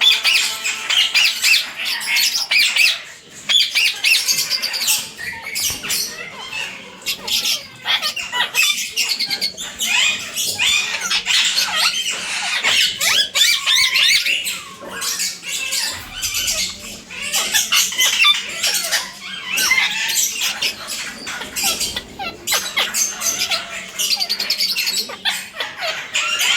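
Several Alexandrine parakeets squawking and chattering, their harsh calls overlapping almost without a break.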